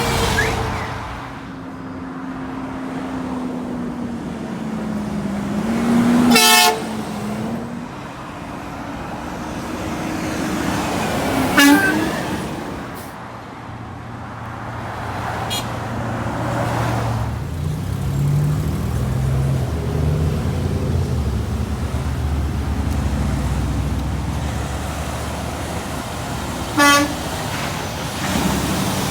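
Truck horns blown in short blasts as trucks pass on a road: one about six seconds in, another near twelve seconds, a faint one around fifteen, and a short one near the end. Road traffic passes between the blasts.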